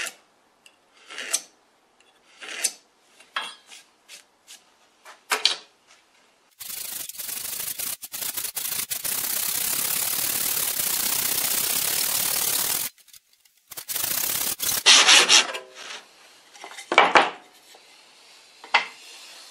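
A blade scored along a steel square in a handful of separate short scraping strokes, then a hand saw crosscutting a board in fast strokes that run together into about six seconds of steady rasping before stopping abruptly. A short last burst of sawing and a few knocks follow near the end.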